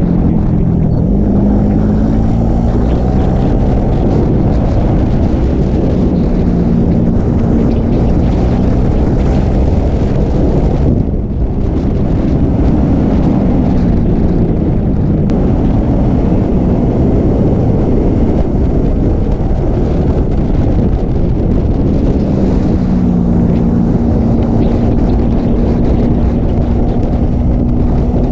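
Yamaha sport motorcycle engine running at road speed under heavy wind noise on the microphone, its pitch rising and falling as the rider opens and closes the throttle and changes gear. The sound dips briefly about eleven seconds in.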